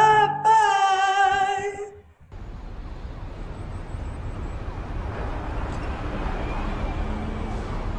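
A held sung note with vibrato ends about two seconds in. After it comes the steady rumble of distant city traffic, with a faint siren.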